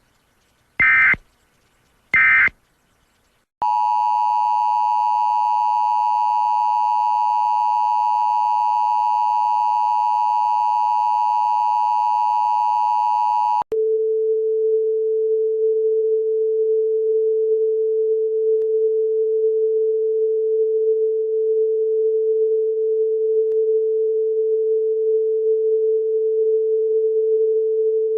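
Emergency Alert System signals: two short bursts of screechy digital header tones about a second apart, then the two-tone EAS attention signal held steady for about ten seconds. It cuts off abruptly into a single steady, lower electronic tone.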